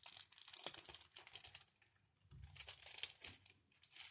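Faint, quick crackling and rustling of the plastic packaging of a photo set being handled and opened by hand, in two spells with a short pause between.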